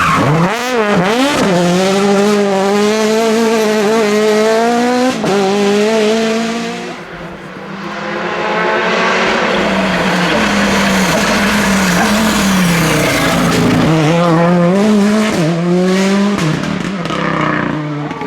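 Rally car engine at full effort on a special stage, its pitch climbing and falling again and again with throttle and gear changes. It dips in loudness about seven seconds in, then builds back up.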